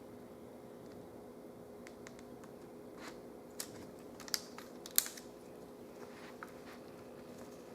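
A few small sharp clicks and light rustles of fingers handling a laptop's LCD cable and its connector, the loudest about five seconds in, over a steady low hum.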